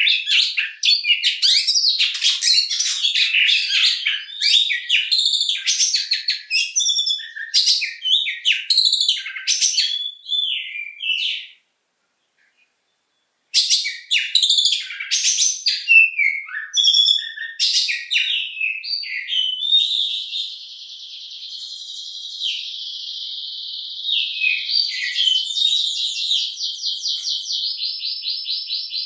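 A male oriental magpie-robin (kacer) singing a loud, varied song of quick whistled and chattering phrases, which breaks off for about two seconds before going on. In the last third it runs into a long, fast, unbroken trill.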